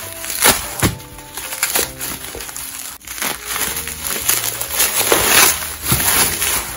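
Plastic bubble wrap crinkling and rustling in irregular bursts as it is handled and pulled open, with light background music underneath.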